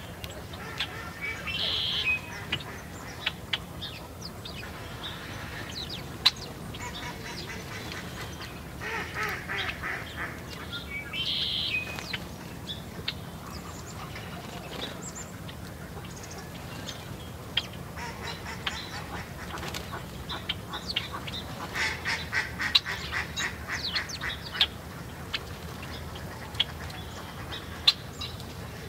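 Songbirds calling at a seed feeder: harsh, buzzy call notes in a few short bouts, the longest a rapid chatter about two thirds of the way through, with scattered sharp clicks between.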